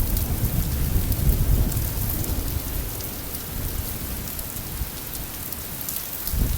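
Steady rain falling in a summer thunderstorm, with a low rumble of thunder that fades away over the first few seconds.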